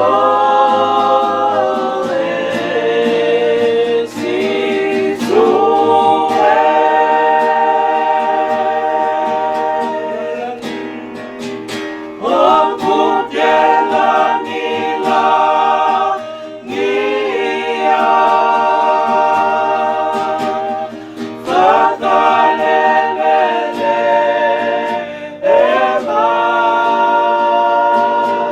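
Voices singing a hymn in long held notes, accompanied by guitar.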